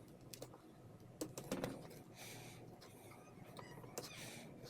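Faint, scattered clicks and light taps of small metal parts and hand tools being handled while an oil seal is fitted into a steering rack.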